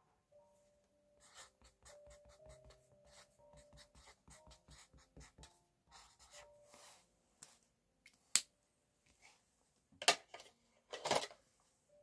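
Felt-tip marker scratching across paper in a run of quick short strokes while lettering is written, then a single sharp click a little past the middle and a few louder handling noises near the end. Faint background music notes sit underneath.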